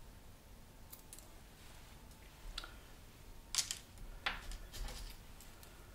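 A few scattered light clicks and taps as small fishing tackle is handled on a tabletop, the loudest about three and a half seconds in.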